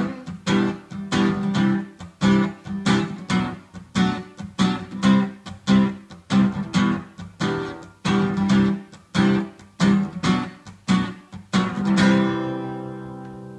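Acoustic guitar played alone: strummed chords in a steady rhythm, ending on a final chord about twelve seconds in that rings out and fades.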